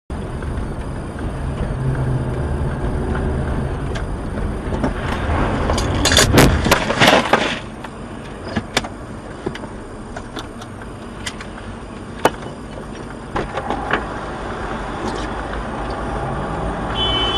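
A vehicle running with steady engine and road noise. About six seconds in comes a car collision: a burst of loud impacts lasting over a second. After it the running noise drops and scattered clicks and knocks follow.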